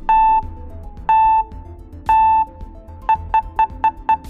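Countdown timer sound effect: three beeps one second apart, then fast short beeps about four a second near the end, over soft background music.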